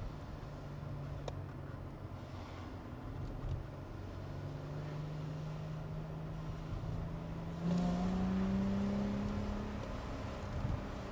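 2005 Chrysler Crossfire's V6 engine heard from inside the cabin, pulling under acceleration with its pitch slowly rising. A little past halfway it gets louder and climbs higher for about two seconds, then eases off.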